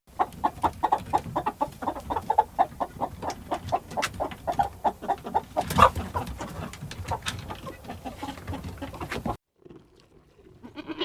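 Chickens clucking in a quick run of short notes, several a second, which stops abruptly near the end.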